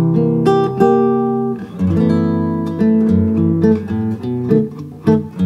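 Acoustic guitar music, plucked and strummed.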